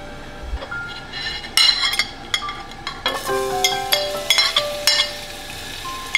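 A metal fork clinks and scrapes against a ceramic plate in a series of sharp clicks from about a second and a half in. Background music with held, piano-like notes plays under it.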